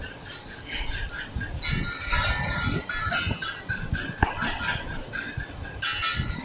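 Wire whisk scraping and clinking against a stainless steel saucepan in quick, rhythmic strokes, stirring crème anglaise (egg-and-cream custard) as it heats.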